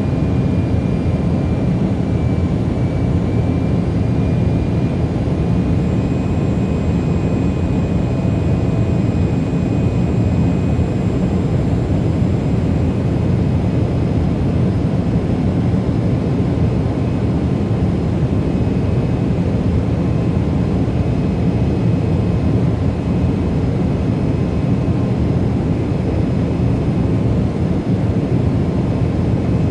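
Jet airliner engines and airflow heard from inside the passenger cabin during the climb after takeoff: a steady, even noise with a faint high whine held over it.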